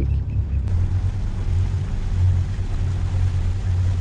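Steady low rumble with a hiss aboard a catamaran under way. About a second in, the sound shifts to a fuller, brighter hiss.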